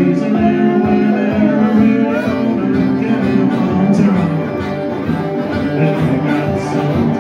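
Live blues band playing: strummed acoustic guitar and electric guitar, with a harmonica played into a microphone.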